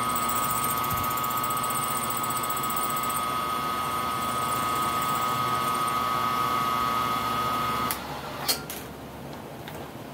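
Milling machine spindle running with a steady whine while a small cutter works in a round part. It shuts off abruptly about eight seconds in, followed by a sharp click and a fainter one as the part is handled.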